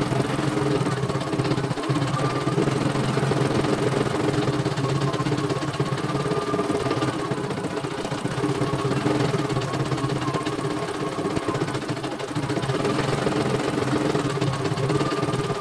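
CNY E900 computerized embroidery machine stitching a design: a steady, rapid needle rhythm with a higher whine that comes and goes.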